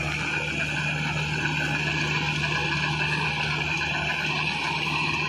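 Mahindra 475 DI tractor's 42 HP diesel engine running steadily under load, pulling a 7-foot rotavator through the soil in first low gear. The engine note holds even, without bogging down.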